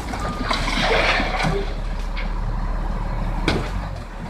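Heavy diesel vehicle engine running with a steady low rumble, a burst of hissing about half a second in, and a sharp knock near the end.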